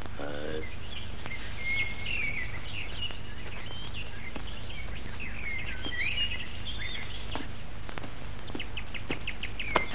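Small birds chirping and twittering in quick scattered calls, with a rapid run of short ticking notes near the end, over a steady low hum of an old film soundtrack.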